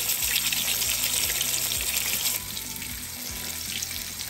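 Flour-coated whole bass shallow-frying in peanut oil: a steady crackling sizzle that turns somewhat quieter a little over two seconds in. Soft background music plays underneath.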